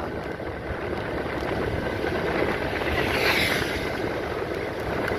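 Steady road noise of a moving vehicle, with wind on the microphone, and a brief swelling hiss about three seconds in.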